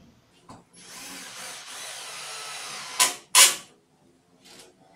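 Cordless drill/driver running steadily for about two seconds as it drives a screw at an angle into melamine board, then two short, louder bursts in quick succession.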